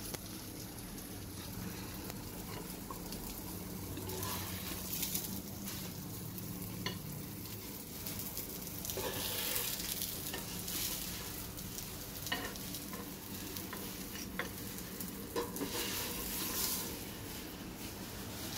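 Rava-coated surmai (seer fish) steaks sizzling softly in the hot oil of a flat pan, the flame just switched off, with a few scattered taps and scrapes of a wooden spatula as the pieces are lifted out. The sizzle swells briefly twice as pieces are moved.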